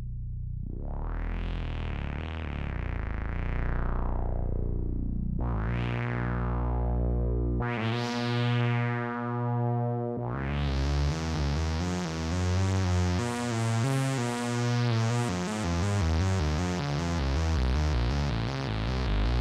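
Electronic synthesizer sound effect: sustained low notes whose tone sweeps brighter and back darker three times, then opens about halfway through into a bright, dense sustained texture with shifting low notes.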